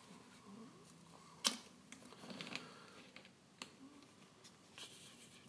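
A few faint, sharp clicks over quiet room tone, the loudest about one and a half seconds in and another a couple of seconds later.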